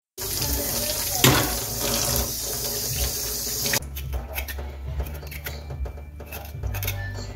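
Kitchen tap running into a stainless-steel sink as ginger root is rinsed under the stream. The water cuts off a little under four seconds in, and short, irregular scraping follows as a knife peels the ginger's skin.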